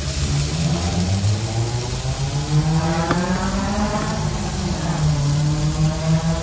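An engine running, its pitch rising over the first couple of seconds, falling again around the middle, then holding steady, over a light hiss of food on the grill.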